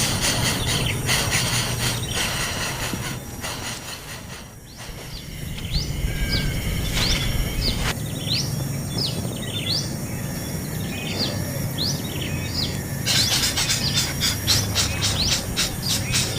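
Birds chirping: a string of short, rising chirps about once or twice a second, between stretches of a fast, buzzing rattle at the start and again near the end.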